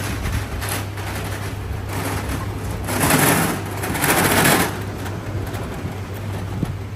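Rapid mechanical rattling from a workshop power tool, with two louder bursts about three and four seconds in, over a steady low hum.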